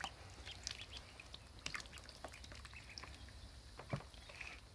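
Ducklings peeping faintly and sporadically as they paddle in shallow water, with small splashes and a soft knock about four seconds in.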